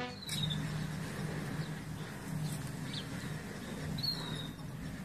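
A few short, high chirps from small birds over a low, steady hum of outdoor ambience.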